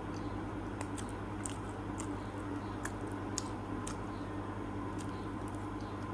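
Close-up chewing of noodles, with short, sharp mouth and fork clicks scattered throughout, over a steady background hum.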